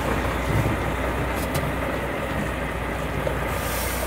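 Cattle truck's diesel engine running steadily as the truck rolls slowly along a dirt road, a low rumble under road and wind noise, heard through the open cab window. A couple of faint clicks about a second and a half in.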